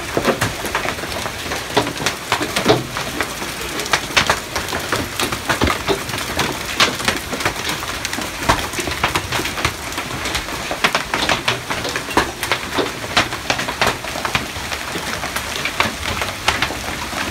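Heavy hailstorm: a dense, steady rush of falling hail with many sharp, irregular hits of hailstones striking hard surfaces.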